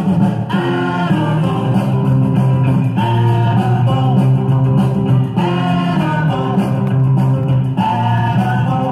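A 45 rpm vinyl single of mid-1960s garage surf rock playing on a turntable, with singing over electric guitar and a steady band backing.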